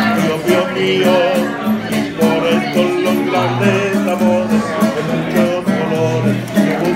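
Nylon-string acoustic guitar strummed and picked in a steady rhythm, with a man singing along.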